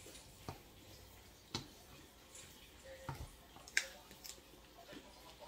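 A person eating with her fingers: a handful of soft mouth clicks and smacks from sucking at the food, spaced about a second apart over a quiet room.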